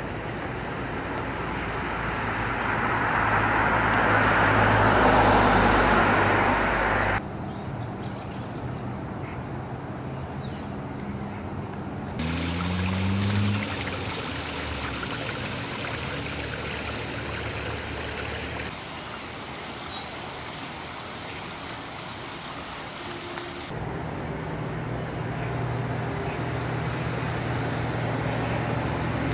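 Outdoor street ambience in short edited pieces: a car passes, swelling and then cutting off abruptly about seven seconds in. Later, a vehicle engine rises briefly in pitch, a few bird chirps follow, and a steady engine hum runs near the end.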